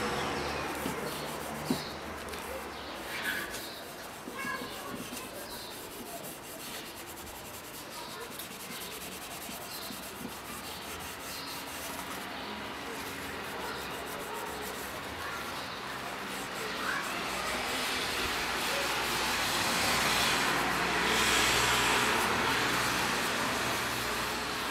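A cloth pad rubbing carnauba wax into a wooden board: a steady hissing rub that grows louder and more vigorous about three-quarters of the way through.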